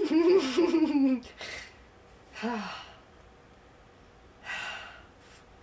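A person's drawn-out wordless voiced groan for about a second, then a short falling vocal sound and breathy gasps and sighs.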